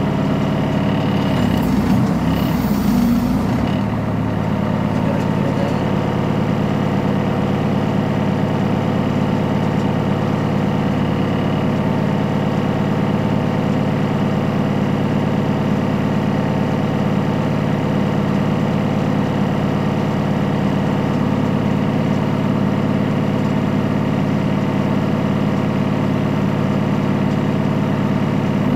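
Backhoe loader's diesel engine idling steadily, with a brief louder rumble and hiss about two seconds in.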